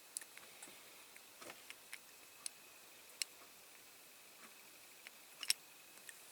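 Faint, irregular small clicks and taps of a diecast toy car's small parts being handled and pressed together while a door is fitted into the body, the sharpest click about three seconds in and another near the end.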